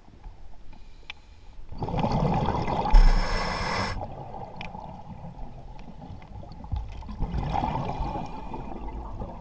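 A scuba diver breathing through a regulator, heard underwater: a breath drawn in about two seconds in, followed by a loud rush of exhaled bubbles, and another breath near the end.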